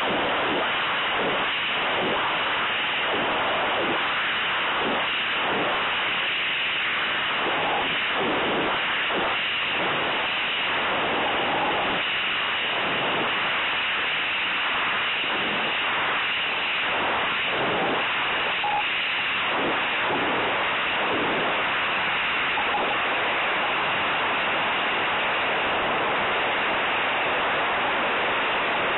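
Steady rushing hiss of air over a model rocket's onboard camera microphone, swelling in irregular gusts, as the rocket descends.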